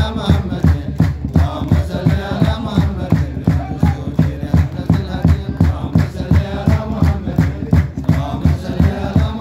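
Ethiopian menzuma devotional song: voices chanting a melody over a steady percussive beat.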